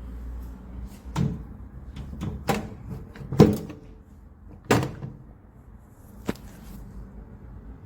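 About six sharp, irregular snaps and clunks from a Sharp compact microwave, the loudest about three and a half seconds in. A low hum stops about a second in.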